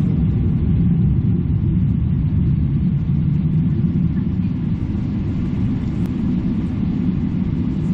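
Steady low rumble of an airliner's jet engines at idle, heard inside the passenger cabin while the aircraft stands holding for take-off clearance.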